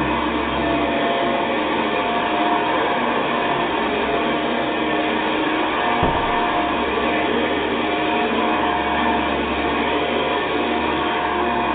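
Hoover Convertible model 4001 upright vacuum cleaner, with its original metal fan, running steadily on carpet: an even motor-and-fan noise with a steady whine. There is a single short knock about six seconds in.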